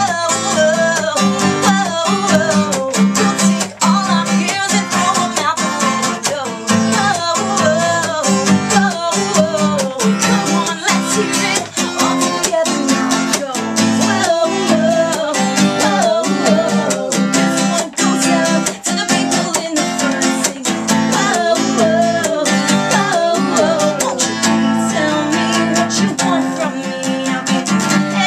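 A woman singing while strumming an acoustic guitar in a steady rhythm.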